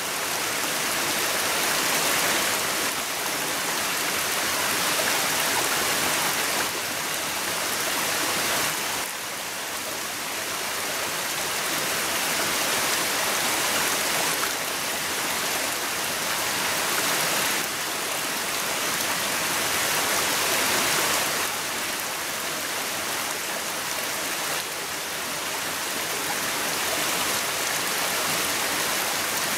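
Rushing water of a forest stream: a steady hiss that swells and eases gently every few seconds.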